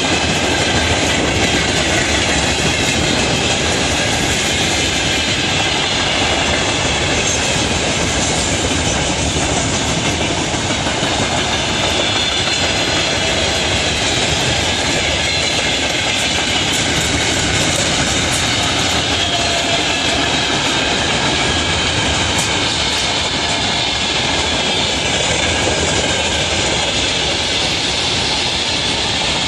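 Freight train rolling past without a break: a loud, steady rumble of wagons with the clatter of wheels on the rails.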